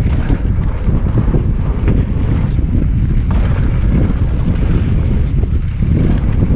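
Loud, steady wind buffeting the microphone during a fast ride down a mountain-bike trail, with a constant low rumble from the riding.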